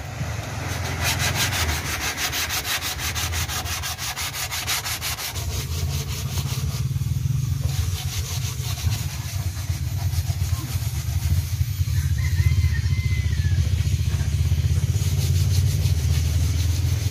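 Sandpaper rubbed by hand in quick back-and-forth strokes over a fishing boat's painted surfaces, preparing them for new paint. A steady low rumble runs under most of it.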